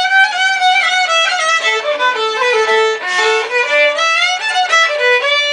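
Solo violin playing a quick melody, several notes a second, dipping to a lower passage in the middle and climbing back up, with a brief scratchy noise about three seconds in.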